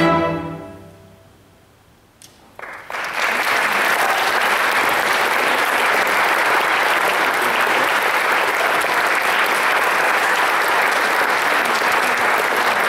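A string orchestra's final chord dies away over about a second. After a short hush, the audience breaks into applause about two and a half seconds in, and it carries on steadily.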